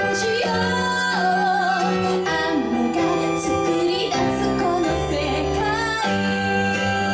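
A live pop song: a woman sings a melody with vibrato over sustained band chords, and her voice drops out about six seconds in, leaving the instruments playing on.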